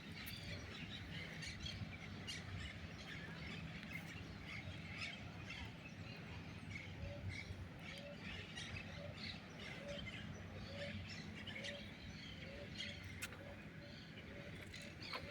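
Birds chirping and calling, many short overlapping calls. Through the second half a low short note repeats every half second or so.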